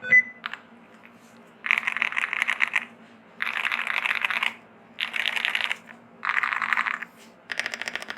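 Fast typing on a V65 mechanical keyboard with PBT dye-sub keycaps and foam-dampened Akko Cream Yellow V3 switches, in five quick runs of clacks about a second each with short pauses between. A single sharper clack with a brief ring comes just at the start.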